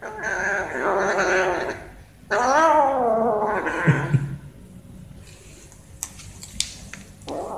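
Tabby kitten making two long wavering cries while crouched over a piece of food, then a few faint clicks as it eats, with another cry starting near the end.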